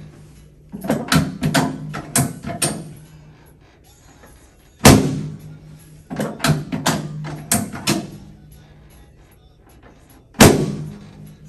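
Loud knocks from a chiropractic treatment table under adjustments: two heavy thuds about five and a half seconds apart, each followed a second or so later by a quick run of five or six lighter clacks.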